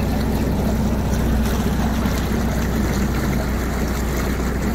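Narrowboat's diesel engine running steadily at a constant speed.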